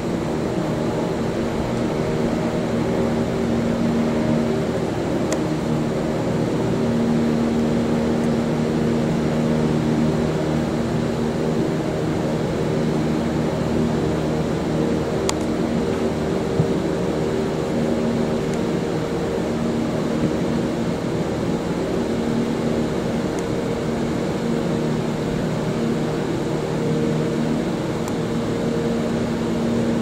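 A motor running steadily: an even mechanical hum with several low steady tones and no change in speed.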